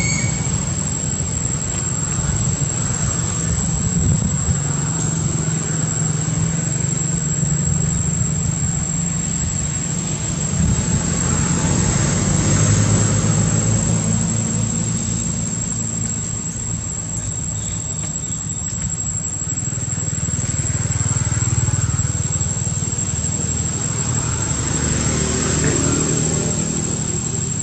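Steady low engine-like rumble that swells and fades gently, under a constant thin high-pitched whine.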